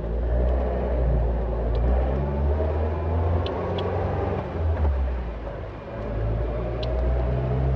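Caterham Super Seven 1600's engine running under way, a deep low note whose pitch rises and falls, easing off briefly near the middle and again about six seconds in before picking up.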